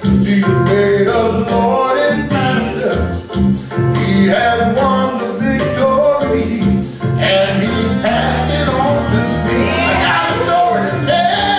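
Gospel song played over a backing beat with a steady driving rhythm, and a man's voice singing and gliding over it between the verses.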